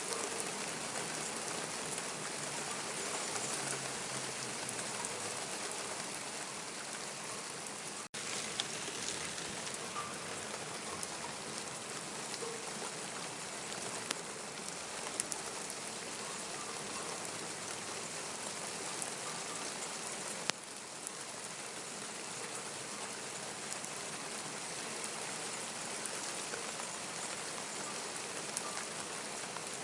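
Steady rain falling on surfaces, an even hiss with scattered sharper drop ticks. The sound drops out for an instant about eight seconds in.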